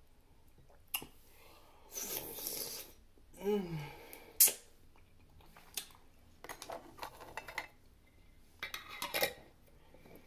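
Biting into and chewing a crunchy Vlasic bread and butter pickle spear: scattered crisp crunches and wet chewing sounds, with one sharp loud crunch about four and a half seconds in. A short falling hum from the eater comes about three and a half seconds in.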